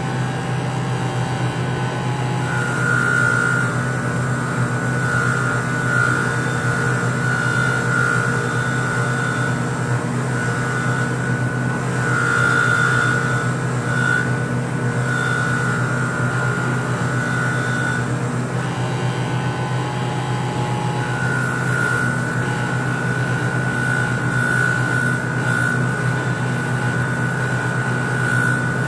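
Bench grinder motor running steadily with a wire wheel brushing carbon off a Mazda 13B rotary engine rotor. Over the motor's hum a high whine comes and goes as the rotor is worked against the wheel. It drops out for a few seconds about two-thirds of the way through.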